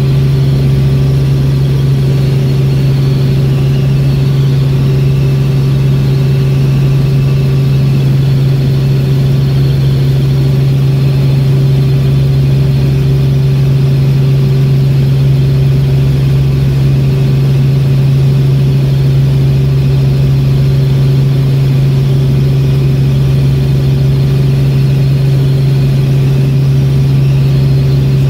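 Helicopter in flight heard from inside the cabin: a loud, steady drone with a strong low hum that does not change.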